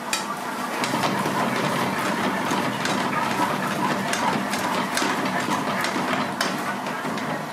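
Gravy fish cooking in a metal frying pan over a gas burner, with a steady roar throughout; a metal ladle stirs it and clinks sharply against the pan at the start and twice more near the end.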